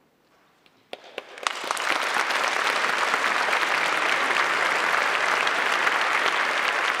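A concert audience breaking into applause: about a second of near silence, a few scattered first claps, then full, steady applause within another second.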